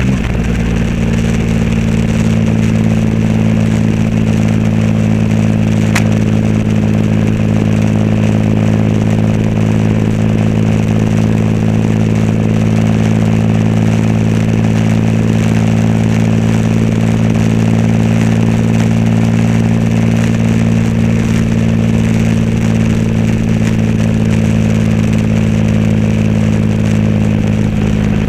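Triumph Rocket 3 Roadster's 2.3-litre inline three-cylinder engine through a custom exhaust, running at a steady cruise with an even, unchanging drone. A brief click sounds about six seconds in.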